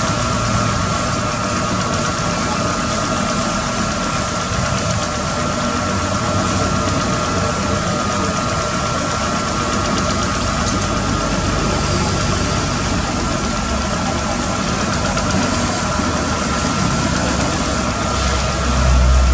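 A motor running steadily with a constant whine over a hum, and a low rumble swelling near the end.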